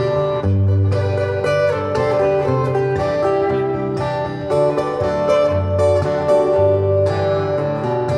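Electric guitar playing an instrumental lead break in a country song, with a steady bass line underneath.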